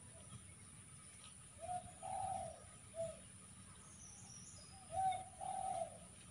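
Dove cooing: two phrases of a few low, rounded coo notes each, about three seconds apart.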